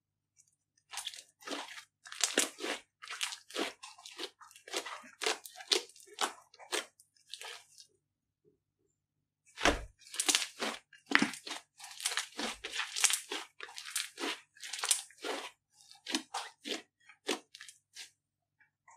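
Green slime being stretched, squeezed and then poked with the fingertips, giving a run of irregular sticky crackles and pops. The crackling breaks off briefly about eight seconds in and starts again as the fingers press into the flattened slime.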